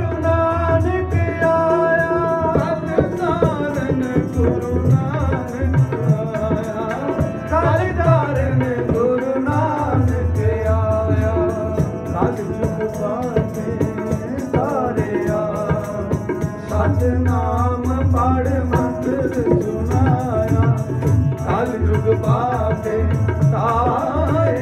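Sikh kirtan music: harmoniums carrying the shabad melody over a steady tabla rhythm, with voices singing along at times.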